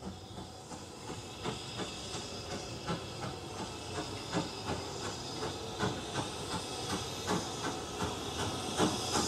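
Steam locomotive approaching with a train, growing steadily louder, with a steady hiss of steam and a regular beat of knocks about three times a second.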